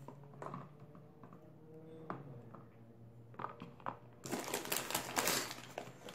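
Small scattered clicks of gummy bears being handled and dropped into clear plastic popsicle molds, then a longer burst of plastic candy bag crinkling about four seconds in.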